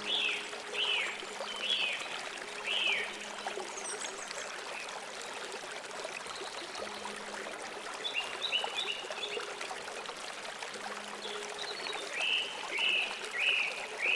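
A stream running steadily, with a songbird calling over it in short downward-sliding notes. There is a run of four at the start, a cluster about eight seconds in, and three more near the end.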